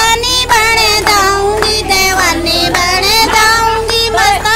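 A woman's high voice singing a Shiva bhajan, a Hindi devotional song, in long held, wavering phrases.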